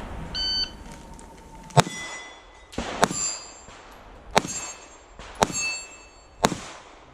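Shot-timer start beep, then six pistol shots from a Springfield Armory EMP, spaced about a second apart. Each shot is followed by the ring of a struck steel target.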